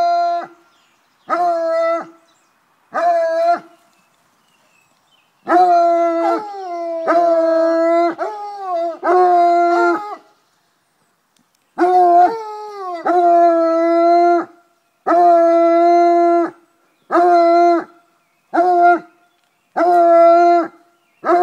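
Gascon-Saintongeois scenthound baying on wild boar: a run of long, drawn-out bays at one steady pitch, some dropping at the end, broken by short pauses of a second or two.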